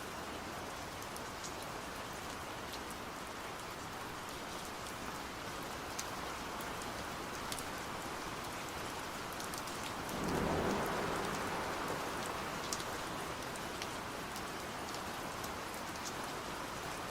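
Steady rain falling, with scattered single drops ticking through it. About ten seconds in it swells louder for a couple of seconds, with a low rumble underneath.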